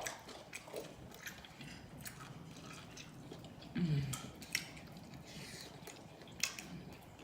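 Wet mouth smacking and clicking of someone chewing food close to the microphone, with irregular sharp smacks throughout and a brief hum falling in pitch about four seconds in.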